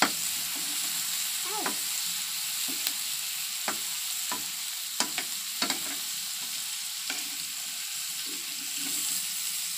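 Chopped tomatoes, onions and garlic sautéing in oil in a wok, sizzling steadily, while a metal spatula stirs them and clinks against the pan several times.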